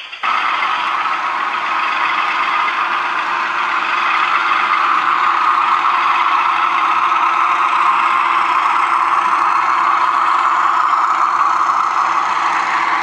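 Diesel engine sound from a DCC sound decoder in a model diesel locomotive, running steadily through the locomotive's small speaker as it hauls a train of vans.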